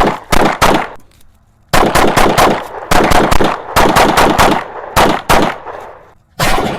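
Rapid semi-automatic fire from a 9mm Glock 45 pistol: three quick shots, a pause of about a second, then long fast strings of shots, several a second, with a brief lull near the end before firing resumes.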